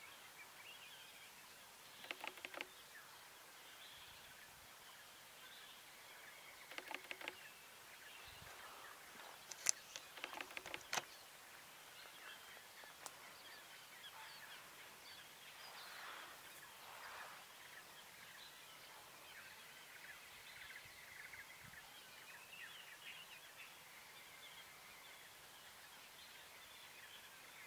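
Faint outdoor ambience with scattered calls of small birds. Three short bursts of sharp clicks come through: one about two seconds in, one about seven seconds in, and the loudest about ten seconds in.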